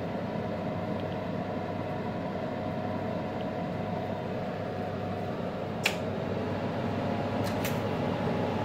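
Steady mechanical hum, like a fan running, with a single sharp click about six seconds in and two faint ticks near the end.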